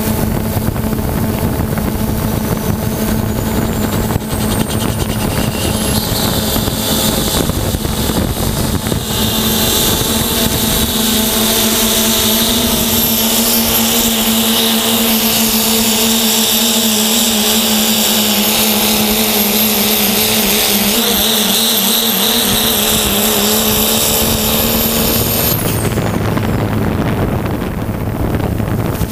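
Quadcopter drone's propellers humming steadily overhead, with a 2.6-class diesel pulling truck's run heard under them. A high whine climbs over the first several seconds, and the engine and turbo then hold at full power until they cut off a few seconds before the end.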